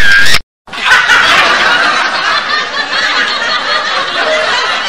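Many people laughing and snickering together, a dense overlapping crowd laugh that starts about a second in, after a short loud burst and a moment's dropout.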